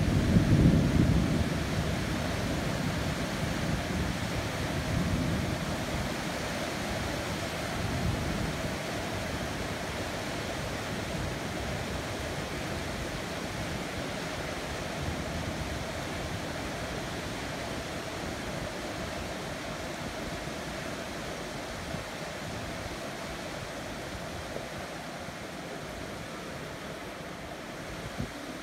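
Heavy rain falling steadily, with a deep rumble of thunder dying away over the first several seconds.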